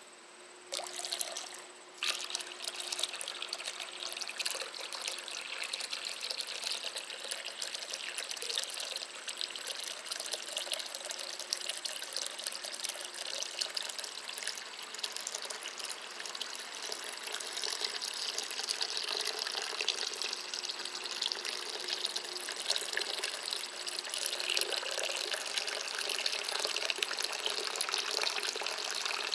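A steady stream of water poured into a shallow terracotta saucer, splashing and trickling onto the water already in it. It starts about a second in, breaks off briefly near two seconds, then runs on without a break.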